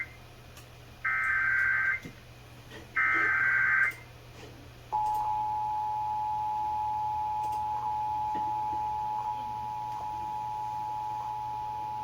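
Emergency Alert System test received on AM radio: two of the screeching SAME header data bursts, each about a second long with a second's gap. About a second later the steady two-tone attention signal starts (853 and 960 Hz together) and holds, over a low hum.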